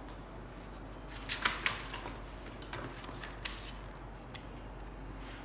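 Several light clicks and taps, scattered irregularly, over a faint steady low hum.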